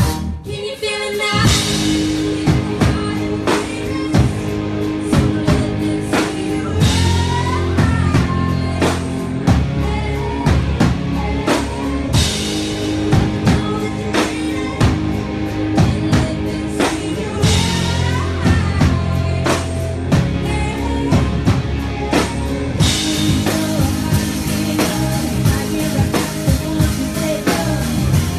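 Live pop-rock band in rehearsal, with drum kit and electric guitar, playing a song under a female lead vocal sung into a microphone. The band briefly drops out near the start, then comes back in and plays on with a steady beat.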